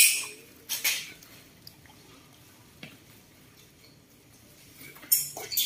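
Short bursts of scraping and clatter from plastic feeding plates as baby macaques eat from them: one at the start, another just before a second in, and a cluster near the end, quiet in between.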